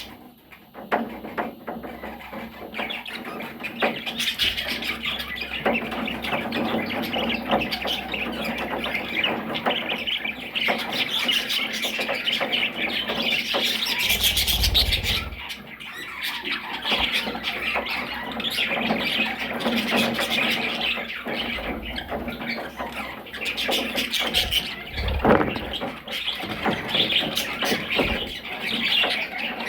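Parrots chattering and squawking continuously, a busy stream of short calls, with a couple of low thumps partway through.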